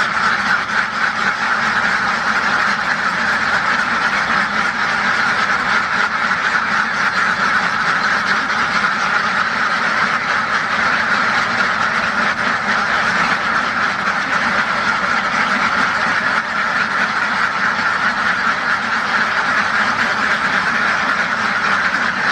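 A flock of farm ducks quacking continuously, many calls overlapping into a dense, steady chorus with no pauses.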